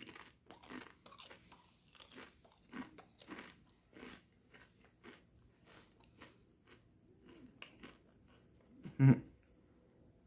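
A person chewing crunchy Sun Chips multigrain chips with the mouth near the microphone, a quick run of small crunches throughout. About nine seconds in, a short, louder sound of the voice breaks in.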